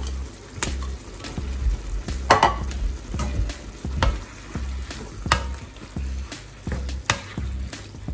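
Spatula scraping and knocking against a non-stick wok as potato slices are added and stirred into sizzling minced meat, in irregular strokes over a steady frying hiss.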